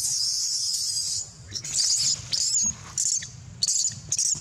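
Baby long-tailed macaque screaming in shrill distress cries, calling for its mother: one long scream, then a run of short shrieks about every half second.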